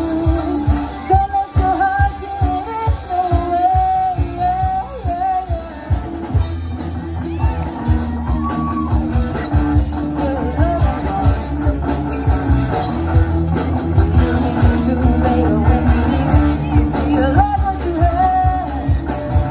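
Live rock band playing: female vocals singing a melody over electric guitars, bass and a drum kit, with steady drum hits throughout.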